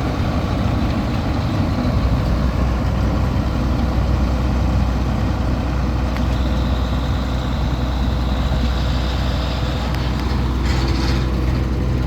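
Combine harvester running with its newly replaced feeder house engaged: a loud, steady mechanical noise over a low drone that firms up about two seconds in, which the farmer judges does not sound good.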